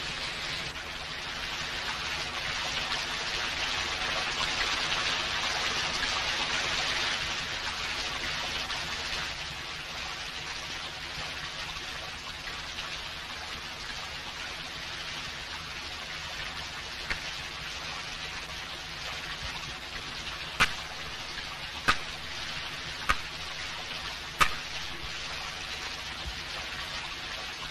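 Steady rain hiss, a little louder for the first several seconds. Near the end come four sharp clicks, a bit over a second apart.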